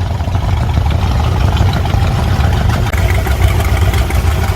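A loud engine running steadily at idle, with a deep, even rumble.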